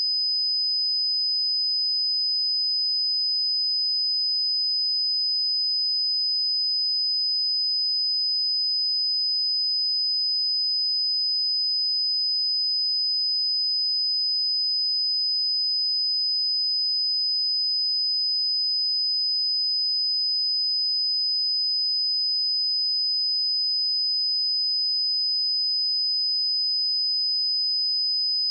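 A pure 5014 Hz sine-wave test tone: one steady, high-pitched tone held at a constant level with no change in pitch.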